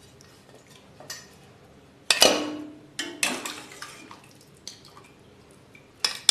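Metal utensils and vessels clinking and knocking against an open pressure cooker pot: a series of sharp clinks, the loudest about two seconds in with a brief ringing tone after it.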